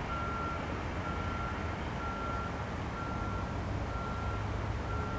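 Vehicle reversing alarm beeping at a steady pace, about one half-second beep a second, over a low steady rumble.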